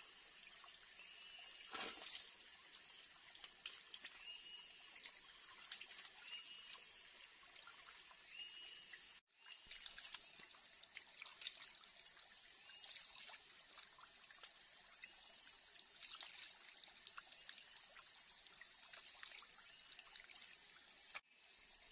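Quiet trickle of a shallow stream, with small splashes and dribbles as water is scooped up in cupped hands and poured for washing. A short chirp from a small animal repeats about every second and a half in the first half.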